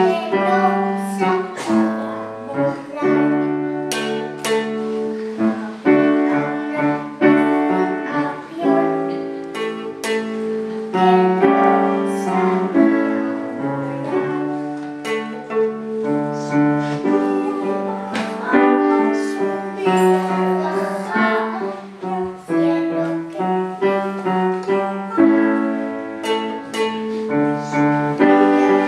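Music led by piano or keyboard, with steady chords and note changes every second or so, and a faint singing voice.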